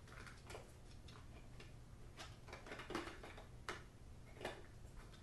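Faint, irregular small clicks and light knocks as a red-dot finder scope is slid onto its mounting base on a small reflector telescope.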